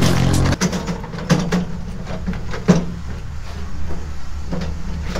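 A wheelbarrow pushed over gravel, its wheel and empty tray rattling with irregular knocks over a steady low rumble.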